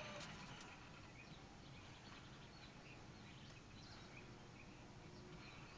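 Near silence: faint background hiss with a few faint, brief high chirps.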